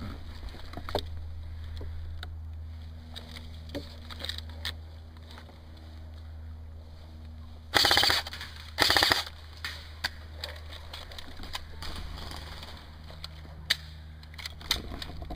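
Airsoft rifle firing two short rapid bursts, each about half a second long and about a second apart. The shots in each burst come quickly, as in full-auto fire.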